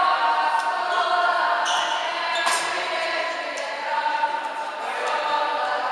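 Players' calls and shouts echoing in a large sports hall during a futsal game, with several sharp knocks of the ball being kicked on the court.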